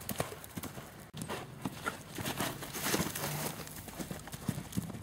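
Hoofbeats of a ridden horse moving across a sand arena surface, a run of irregular knocks.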